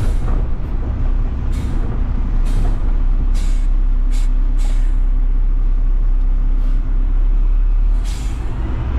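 Front-load garbage truck's diesel engine running steadily under hydraulic load as the lift arms work and the packer blade compacts, with about eight short hisses of air at uneven intervals.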